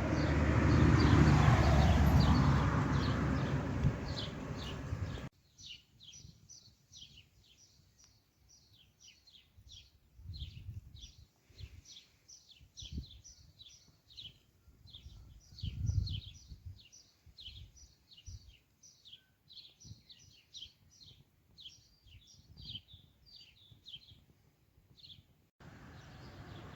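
Small birds chirping in quick, repeated short calls for most of the stretch, with a few faint low thumps. It opens with about five seconds of loud, even rushing noise that cuts off abruptly, and that noise returns near the end.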